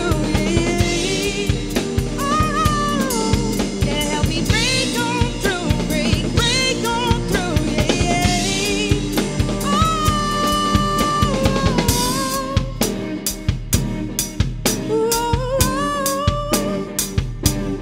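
Blues-soul band playing: a woman singing lead over electric guitar and a drum kit keeping a steady beat. The voice breaks off about twelve seconds in while the drums and guitar carry on, then comes back near the end.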